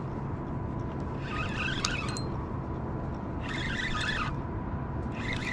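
A fishing reel cranked in short bursts of just under a second, about every two seconds, as a lure is worked back, over a steady low rumble.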